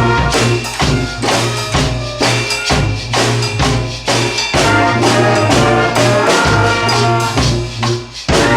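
Community brass band playing a loud tune, horns held over a steady drum beat. The band drops out briefly about eight seconds in and then comes back in together.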